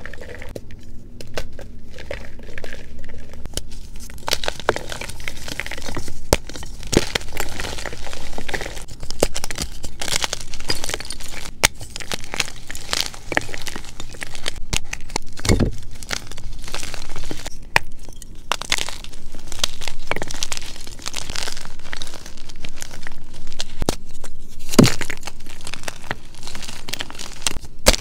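Blocks of plain 2POOD gym chalk crushed and crumbled by hand in a bowl: continuous crunchy, dry crumbling, with frequent sharp snaps as chunks break apart and a few louder cracks along the way.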